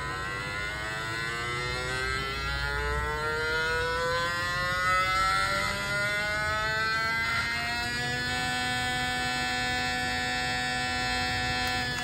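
Small DC motor pressed against a plastic controller case, buzzing as a PWM controller slowly ramps up its speed in a soft-start mode. The pitch rises for about eight seconds, then holds steady.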